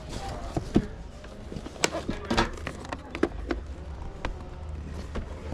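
Scattered knocks and clatters of items being handled and packed onto a cart, about half a dozen sharp ones, over a low steady rumble.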